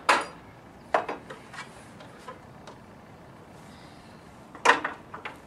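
Crowbar and hammer clanking against metal while gutter spikes are being pried out: a sharp knock just as it starts, a couple more about a second in, and two sharp clanks near the end, with faint clicks between.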